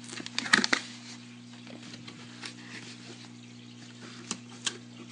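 Cardboard box being handled and opened: a quick run of scrapes and taps in the first second, then a few sharp isolated clicks, over a steady low hum.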